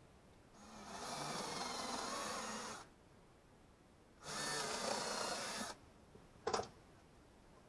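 A power tool runs in two short bursts, about two seconds and then about a second and a half, followed by a single sharp click near the end.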